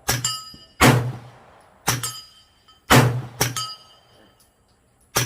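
Suppressed CZ Scorpion firing slow single shots about a second apart, each a muffled crack with a deep thump. Sharp metallic rings come between the shots.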